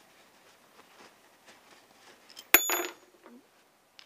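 Small metal engine parts being handled with a paper towel: soft rustling, then one sharp metallic clink about two and a half seconds in that rings briefly, with a few lighter ticks near the end.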